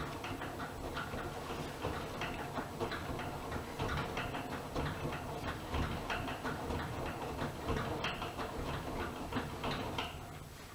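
AEG Öko-Lavamat Lavalogic 1600 front-loading washing machine in its wash phase, the drum turning the wet laundry with a run of irregular clicks and sloshes over a low steady hum. The tumbling stops near the end.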